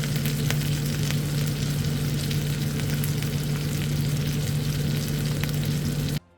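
Fish frying in a hot pan: steady sizzling with many small crackles, which cuts off suddenly near the end.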